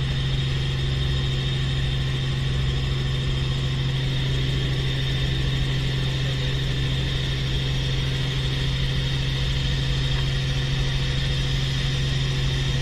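Helicopter heard from inside the cabin in flight: a steady low drone with steady high-pitched whines above it, unchanging throughout.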